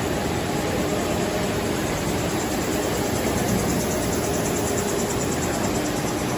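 Steady hum and hiss of industrial machinery running, with a few faint steady tones and no separate stamping strikes.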